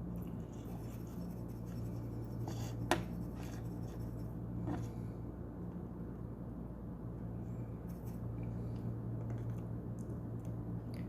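Light scratching and a few small sharp clicks of hand tools working on a circuit board, the clearest click about three seconds in, over a steady low hum.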